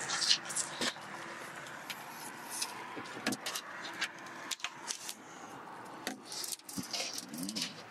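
Rubber squeegee being wiped across wet window glass: a series of short scrapes and clicks, over the steady sound of road traffic.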